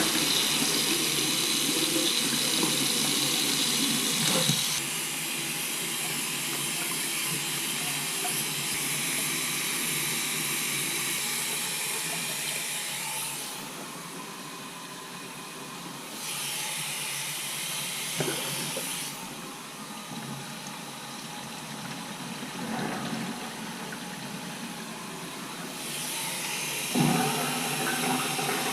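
Water running into and draining from plumbing fixtures, a steady rushing hiss that changes suddenly several times.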